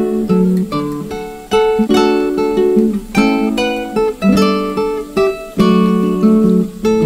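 Background music: acoustic guitar playing plucked and strummed chords with a steady rhythm.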